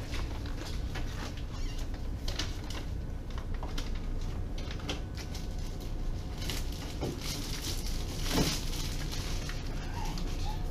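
Footsteps and light knocks from an x-ray cassette being handled at a portable x-ray machine, over a steady low hum.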